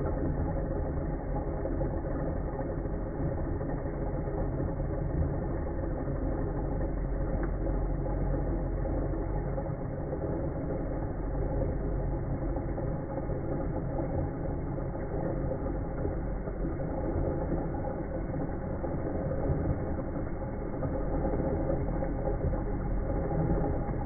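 KitchenAid Magnetic Drive blender running steadily, its motor spinning the blade through vanilla beans in liquid.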